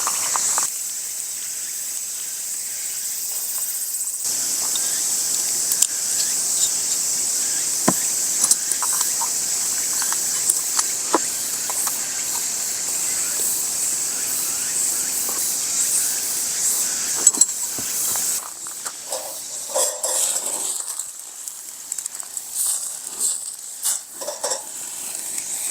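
A steady, high-pitched chorus of insects with scattered light clicks and crackles.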